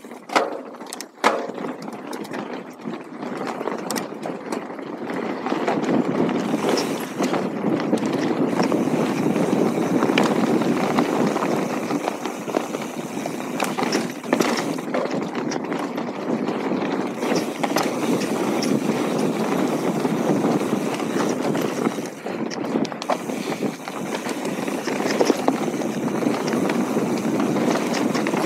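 Mountain bike riding over a dirt track: continuous tyre rolling noise with rattles and sharp clicks from the bike, growing louder about six seconds in as the pace picks up.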